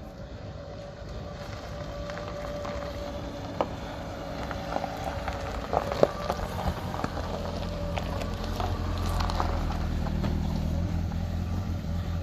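Car engine running with a steady low hum that grows louder about eight seconds in, with a few sharp clicks over it.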